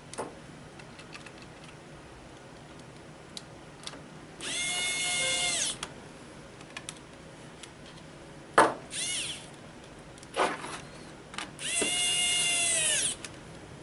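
Electric screwdriver driving small laptop screws in two runs of about a second and a half each: a motor whine that rises in pitch as it spins up and drops as it stops. Between the runs there are a few short clicks and knocks.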